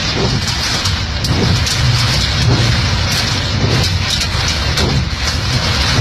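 Heavy rain pelting a moving car's windshield and body, heard from inside the cabin as a dense, crackling hiss over the low rumble of the car and road.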